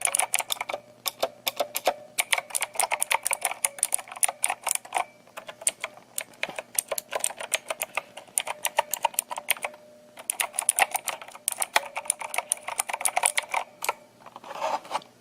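Fast typing on the EagleTec KG010 mechanical keyboard's Cherry Blue imitation switches: loud, dense key clacks in bursts with short pauses. A ringing inside the keyboard lingers in the gaps; the reviewer suspects a spring and notices it most on the spacebar.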